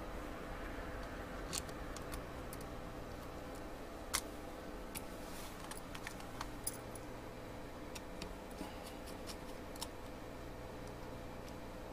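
Small plastic kit parts and screws clicking and tapping as they are handled and fitted: about a dozen sharp, irregular clicks over a steady low hum.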